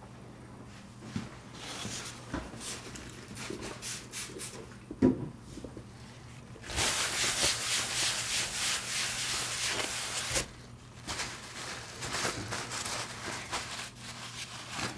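Cloth wiped briskly back and forth over a watchmaker's green bench mat: a dry rubbing hiss lasting about four seconds. Before it come scattered small knocks and handling noises, the loudest a sharp knock about five seconds in, and lighter rustles follow.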